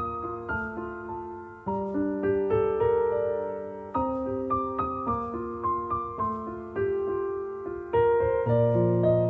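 Background piano music: a soft, slow melody over chords, with notes struck and left to ring.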